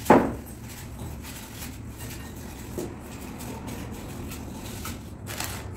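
Marigold tea biscuits being crushed by hand into a bowl: faint crackling and crunching of the dry biscuits breaking. A brief loud noise comes right at the start.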